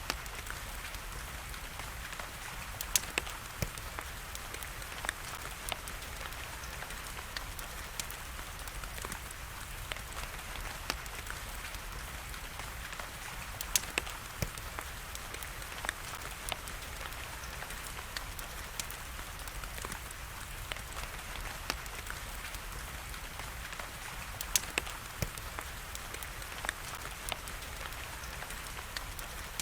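Wood fire crackling, with irregular sharp pops and snaps (a few louder ones), over a steady hiss of rain.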